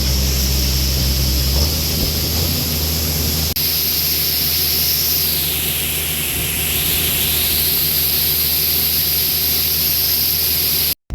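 A combine harvester running steadily while cutting soybeans: engine hum under a high whine from the threshing machinery, which dips in pitch and comes back about halfway through.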